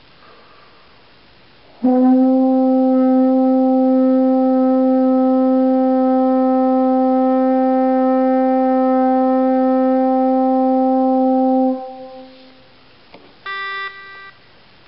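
French horn playing one long, steady held note, starting cleanly about two seconds in and lasting about ten seconds before it stops and briefly rings in the room. Near the end comes a short, higher-pitched sound of under a second.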